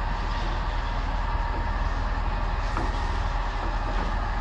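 Heavy diesel engine running steadily, a low rumble with a steady hum over it.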